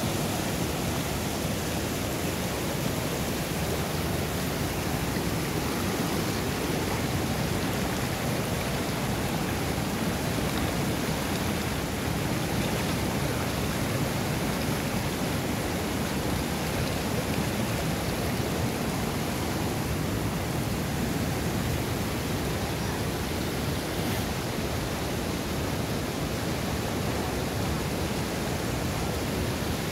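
Steady rush of fast-flowing river water, an even noise that never breaks.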